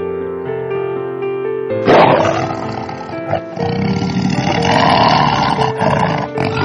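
Background music with steady sustained notes; about two seconds in, a loud animal roar breaks in and carries on as rough, noisy calling over the music to the end.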